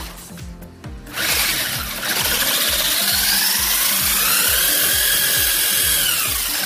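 RacerStar brushless motor of a 1/10 RC car spinning the drivetrain up and back down, with a whine that rises to a peak about halfway through and falls away near the end, over background music.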